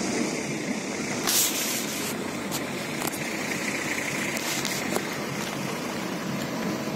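Water rushing and churning around an off-road jeep submerged to its roof as it moves slowly through a flooded ditch: a steady hiss of water with a few brief louder splashes, the biggest about a second in.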